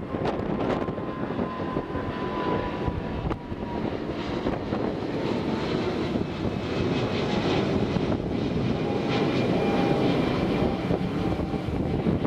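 Twin-engine jet airliner climbing out overhead on takeoff, its engines giving a steady loud roar. A thin whining tone in the roar slowly drops in pitch.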